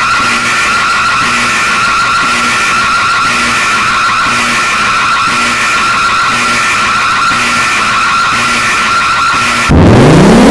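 Loud, harsh electronic emergency alarm: a steady high tone over a noisy hiss, with a low pulse about once a second. Near the end it cuts abruptly to a siren winding up, its pitch rising.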